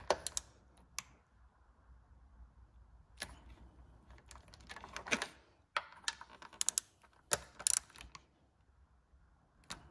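Irregular light clicks and clinks of hand tools and metal engine parts being handled, in small scattered clusters.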